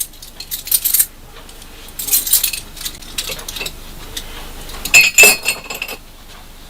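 A bunch of keys and loose metal clinking and jingling as they are handled, in several short bursts; the loudest comes about five seconds in, two sharp clinks with a brief metallic ring.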